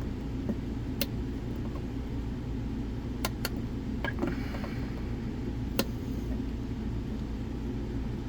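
Sharp, scattered metal clicks as a lock pick is worked in the small lock of a cash lock box, setting its pins one by one, about five clicks in all, over a steady low rumble.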